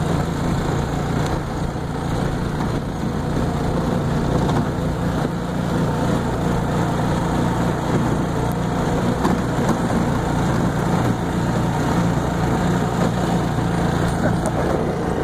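Golf cart driving along a bumpy dirt field track, its motor running with a steady low hum.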